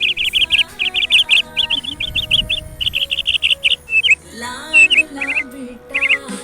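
A bird chirping in quick runs of sharp, high notes, five or six at a time, over soft background music that grows fuller about four seconds in.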